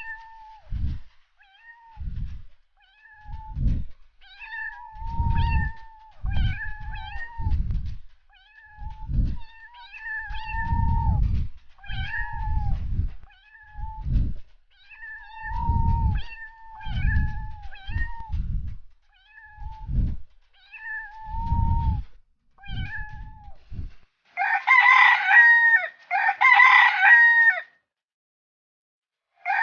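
A cat meowing over and over, short high mews about once a second, with low muffled noise under many of them. About 24 seconds in, two loud, harsher calls of a chicken take over, then it goes quiet.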